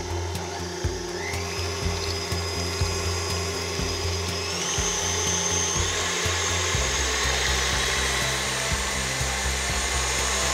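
KitchenAid stand mixer running with its wire whisk, whipping double cream; the motor's whine rises in pitch about a second and a half in and again at about four and a half seconds as the speed is turned up.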